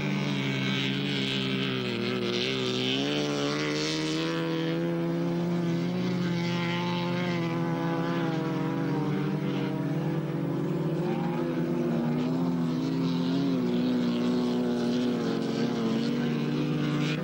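Race car engines running hard at steady high revs, the pitch wavering up and down at times as the cars slide through the turn.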